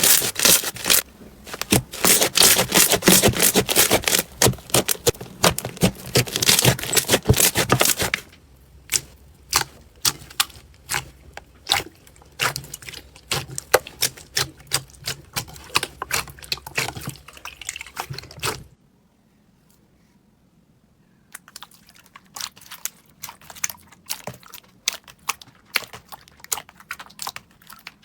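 Slime being squeezed and pressed by hand, giving rapid crackling clicks and pops. They come thick and loud for the first eight seconds, then sparser, stopping for about two seconds near two-thirds of the way through before starting again.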